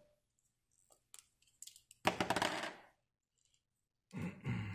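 Small hard Beyblade parts being handled: a few faint clicks, then about two seconds in a short clatter of hard plastic and metal pieces that dies away within a second, as the top is switched into its low mode.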